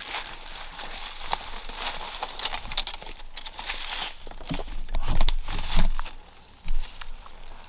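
Footsteps crunching and rustling through dry fallen leaves and brush, in an irregular run of crackles, with a few heavier bumps about five to six seconds in.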